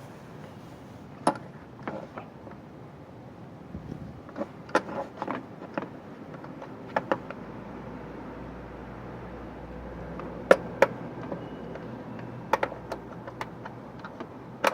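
Scattered metallic clicks and knocks of hand tools and parts being handled on an engine during timing belt work, two sharp knocks about ten seconds in being the loudest, over a faint steady hum.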